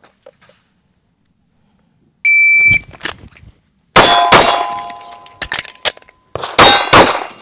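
A shot timer's start beep, one steady half-second tone, then about four seconds in a rapid string of 9mm pistol shots from a PSA Dagger, with steel targets ringing as they are hit.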